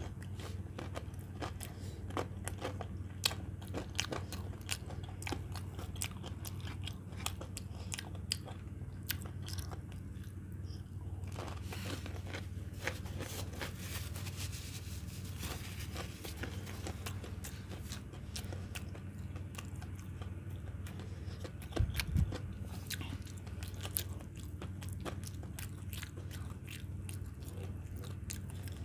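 Close-miked chewing of a breaded cheese chicken nugget: many small crunches and wet mouth clicks. A dull thump comes about three-quarters of the way in.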